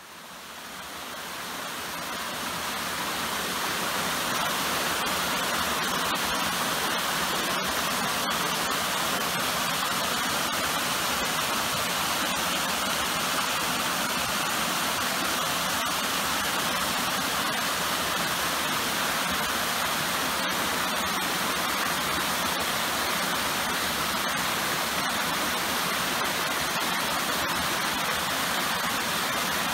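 Cascading waterfall, water rushing and splashing over stepped rock ledges in a steady rush that fades in over the first few seconds.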